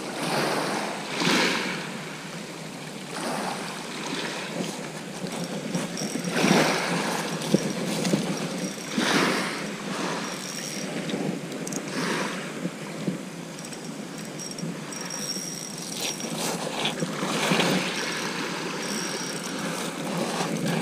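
Small waves washing up and draining back on a shingle beach, a swell of rushing surf every few seconds over a steady background wash.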